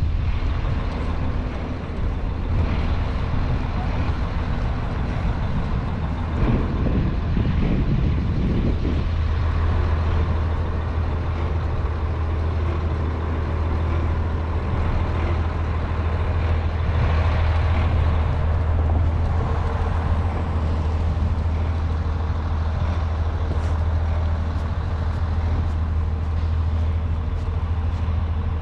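A steady low mechanical hum over outdoor noise, getting stronger about a third of the way in.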